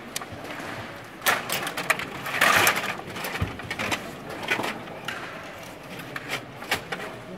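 Stiga table hockey game in rapid play: the control rods rattle and the puck and plastic players clack against each other and the boards in a string of sharp clicks. The densest, loudest rattling comes about two and a half seconds in.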